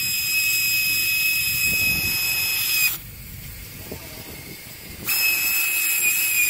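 Air hissing out of an SUV's all-terrain tyre through a valve-stem deflator gauge, with a steady high whistle, while the tyre is aired down for sand. The whistle and hiss cut off abruptly about three seconds in and start again about two seconds later.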